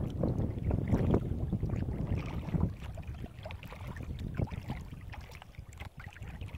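Water splashing and lapping around a kayak's hull as it is paddled, with wind rumbling on the microphone that eases after about three seconds.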